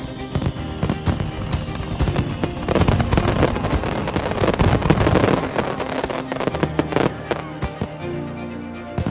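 Fireworks bursting and crackling over background music, with the bangs thickest between about three and five and a half seconds in.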